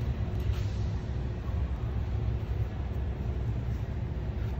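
Steady low background rumble, with a faint light click about half a second in.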